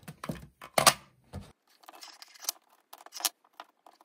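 A power strip being unpacked: its cardboard and plastic packaging rustles and clicks in short irregular sounds, loudest in the first second, followed by a few scattered crackles as the strip and its long plastic cord are handled.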